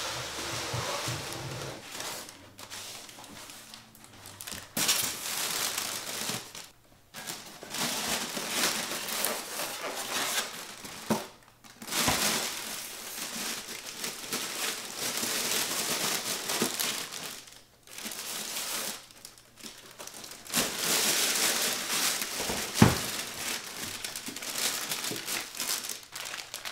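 Plastic packaging crinkling and rustling in stretches as a new deck and its plastic bag of accessories are handled out of their wrapping, with one sharp knock near the end.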